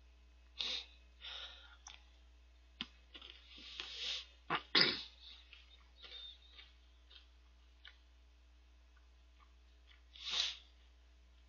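Close-miked eating noises as chocolate star snack soaked in milk is spooned from a plastic cup and eaten: scattered short clicks and sharp breathy bursts, the loudest a pair about halfway through, then one hissing breath near the end.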